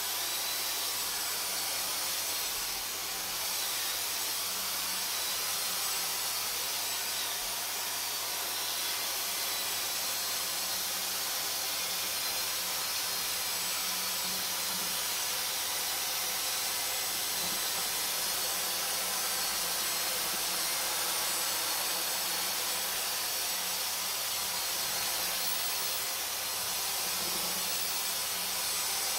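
Dyson DC44 cordless stick vacuum running with a steady hiss, picking up dirt ground into a carpet.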